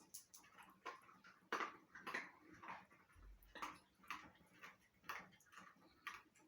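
Faint, irregular clicks and short snuffling puffs from a dog close by, a few a second, with the strongest ones around two seconds in.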